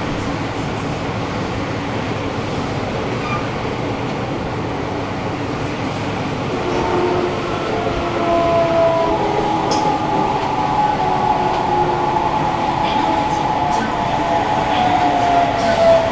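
A Sendai City Subway 1000N series train heard from inside the car while running underground, with a steady rumble and the air conditioning on. About halfway through, the traction motor whine comes up as several tones that fall slowly in pitch as the train slows.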